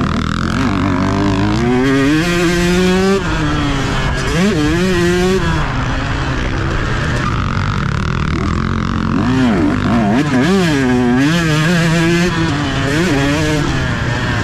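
Two-stroke motocross bike engine at race pace, its revs rising and falling again and again as the throttle is worked, with wind noise on the helmet-mounted microphone.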